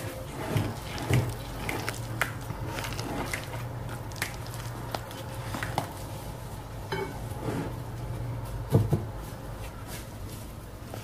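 Silicone spatula stirring and folding a thick semolina batter in a glass bowl: soft wet scraping, with scattered light taps of the spatula against the glass, the loudest about nine seconds in.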